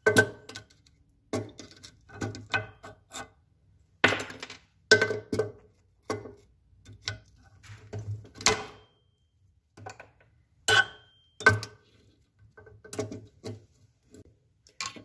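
Pliers clicking, tapping and scraping against the metal and broken plastic governor parts inside a Predator 212cc engine's open crankcase: irregular metallic clinks, a few with a brief ring, while the governor gear and its pin are worked out.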